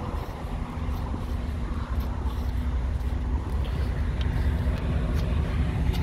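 Semi-truck diesel engine idling with a steady low rumble, with a few light footsteps on pavement.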